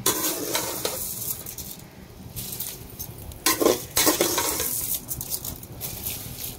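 Soaked rice being scooped with a metal ladle from a steel bowl and tipped in batches into a pot of boiling mushroom masala: the ladle scrapes the bowl and the rice splashes into the liquid. Several bursts, the loudest about three and a half seconds in.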